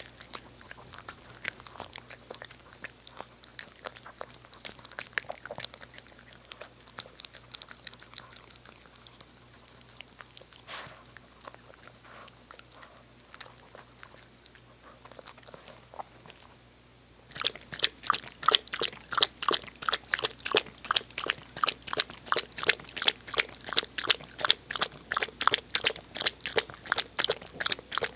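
Shih Tzu eating: faint, irregular crunching and chewing, then about two-thirds of the way through it turns much louder, with quick, even strokes at about three a second.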